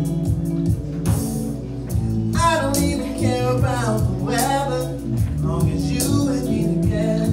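Live soul/R&B performance: a man singing into a microphone over guitar accompaniment, in two sung phrases that bend in pitch, the first about two seconds in and the second about five seconds in.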